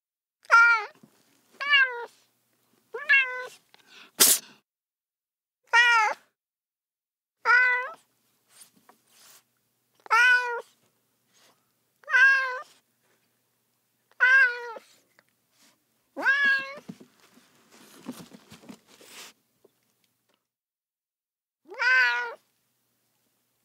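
A cat meowing over and over: about ten short, high meows, each about half a second long, coming a second or two apart. A sharp click about four seconds in, and a pause of a couple of seconds before the last meow near the end.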